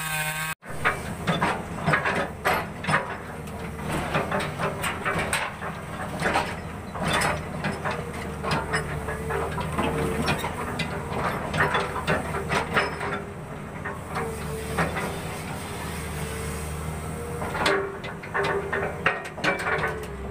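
Caterpillar excavator engine running steadily while its log grapple loads rubberwood logs onto a truck bed, with a wavering whine over the engine and many irregular wooden knocks and clunks as the logs are set down and shifted. It opens with the last of a chainsaw rev, which cuts off abruptly under a second in.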